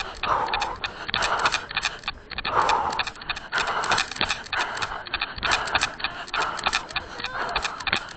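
Running footsteps crunching on a stone track with a light jangling rattle, and hard breathing that swells about once a second, the runner working hard near the end of a 5 km run.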